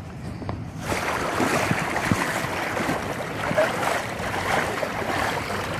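Water splashing and sloshing as someone wades through shallow water, starting abruptly about a second in.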